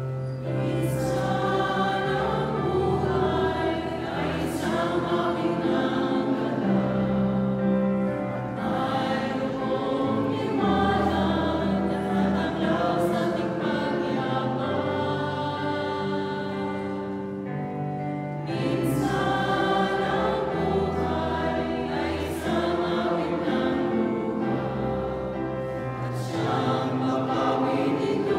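Choir singing a Tagalog hymn to Mary, with a keyboard holding long, steady bass notes underneath.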